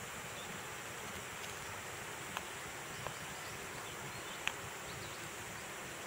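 Steady outdoor ambience with an even, high insect hum, broken by a few faint, sharp clicks, three of them in the middle of the stretch, from an African grey parrot and a cockatiel picking through dry leaf litter.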